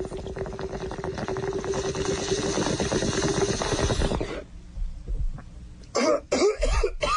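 Bong hit: water bubbling steadily in a bong as smoke is drawn through it for about four seconds, then coughing.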